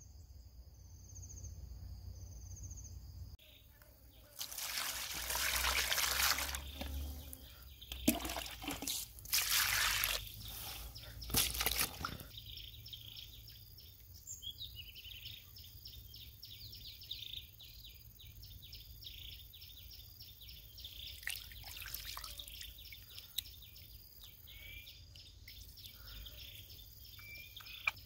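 Water splashing and sloshing in a plastic basin, loudest in bursts from about four to twelve seconds in, then settling into quieter wet handling of squid washed by hand in the water.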